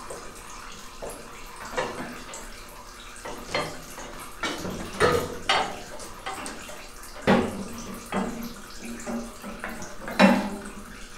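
Hand work on a Farmall Super C's engine: a handful of irregular sharp clicks and metal knocks as the distributor cap is taken off and the steel hydraulic supply and return line is worked loose, the loudest near the end.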